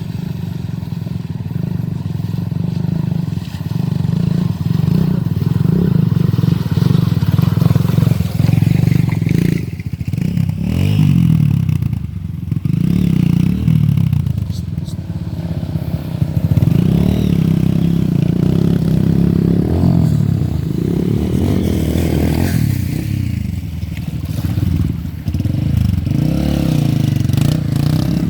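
Off-road vehicle engine running under load, revving up and falling back again and again as it is driven over rough ground.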